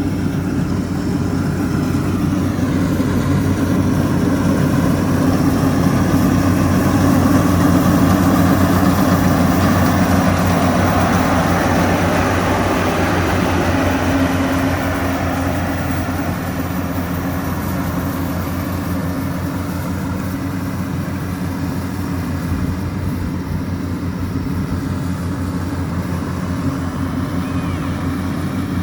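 Yanmar YH700 rice combine harvester running: a steady engine note with a fast even beat and a noisy mechanical rush over it. It grows louder toward about a third of the way through, then eases off a little.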